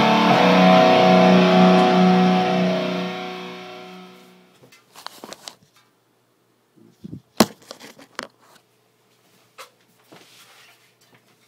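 Distorted electric guitar chord through a Peavey 6505 amp ringing out and fading away over about four seconds. Then a few scattered clicks and knocks, the sharpest about seven seconds in.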